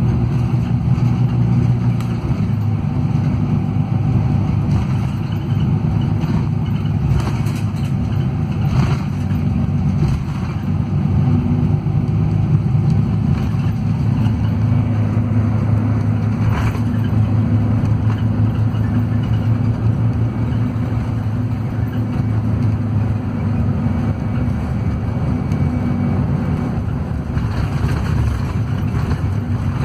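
Scania DC13 440 hp engine and driveline of a Scania K440IB double-decker coach heard from inside the passenger cabin: a steady low drone while the coach is under way, with a few brief rattles.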